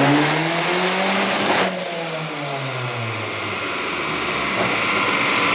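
Turbocharged Ford Focus engine at full throttle on a chassis dyno during a pull with slightly raised boost: the revs climb with a rising turbo whistle, then about 1.7 seconds in the throttle shuts with a short high chirp and the engine winds down as the rollers coast to a stop.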